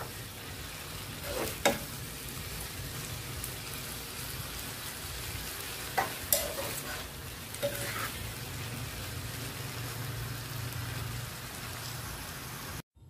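Pansit canton noodles and vegetables sizzling steadily in a frying pan as they are tossed with a spatula, with a few sharp clicks of the spatula against the pan. The sound cuts off suddenly near the end.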